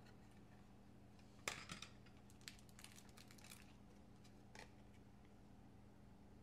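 Small black plastic hard case opened: a sharp plastic snap about a second and a half in, a couple of quicker clicks right after, then scattered faint clicks and taps from handling, over near silence.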